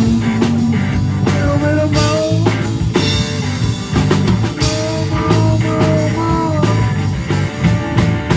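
Rock band playing an instrumental passage: a lead line with bending, sliding notes over driving drums and bass.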